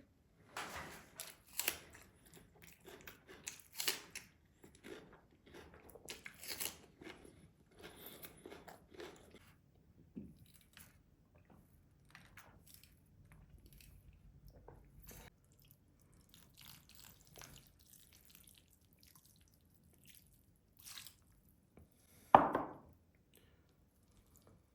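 Close-miked chewing of rice and meat: wet, crunchy mouth sounds in quick bursts that thin out and grow fainter about halfway through, with one short louder sound near the end.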